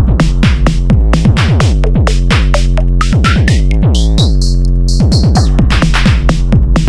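Electronic background music with a steady drum-machine beat and synthesizer, with a rising sweep about three seconds in.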